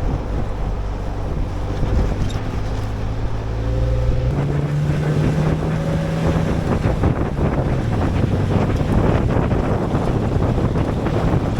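Jeep engine running under load while driving a dirt trail; its note rises about four seconds in and then holds steady, with tyre and gravel noise and wind buffeting the microphone.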